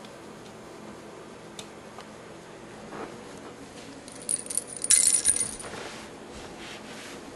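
A cat toy jingling and rattling in a short burst about four to five seconds in, as the kittens bat it around.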